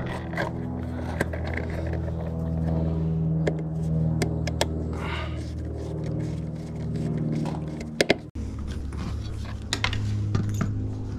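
Soft background music with sustained chords, over small metallic clicks and taps of a screwdriver and wire ends being worked at a light fixture's terminal screws. The music changes abruptly about eight seconds in.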